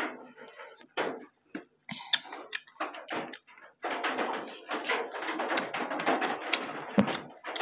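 Close-up eating sounds: wet chewing, lip-smacking and fingers handling food, sparse at first and nearly continuous from about four seconds in, when a large piece of beef is bitten into and chewed.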